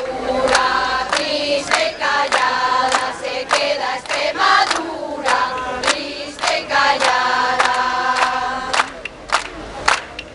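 Women's choir singing while clapping their hands in time, a little under two claps a second. Near the end the singing breaks off and only the clapping carries on.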